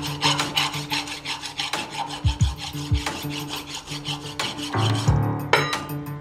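Hand file rasping back and forth across the steel yoke of a Dana 44 front axle shaft held in a bench vise, in quick even strokes, about four or five a second. It is dressing off burrs and dents that a snapped U-joint left in the yoke.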